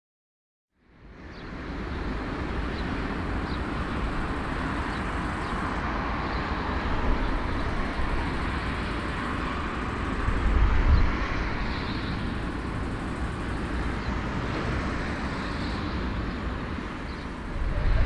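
Jet engines of a four-engine Airbus A340 airliner running as it taxis, a steady rushing noise with a deep rumble that starts about a second in and swells briefly around eleven seconds in.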